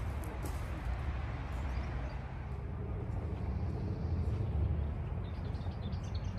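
Outdoor city ambience: a steady low rumble, with faint high chirps near the end.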